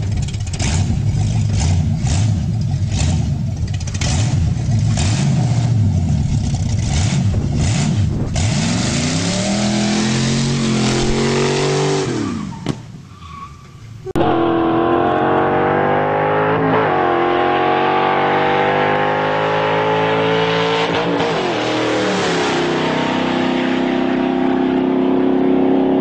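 A Chevrolet Nova SS V8 running with a choppy beat about twice a second, then revving up and down. After a short lull it accelerates hard, its note climbing and dropping sharply several times as it shifts up through the gears, then holding steady near the end.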